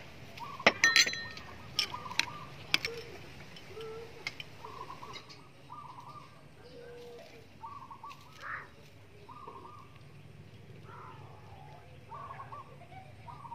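A few sharp clinks of a metal spoon against a bowl in the first three seconds. Then birds call repeatedly in the background.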